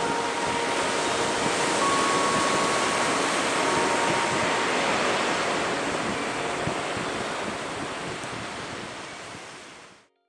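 Sea surf washing against the shore, a steady rush of waves that fades out over the last few seconds.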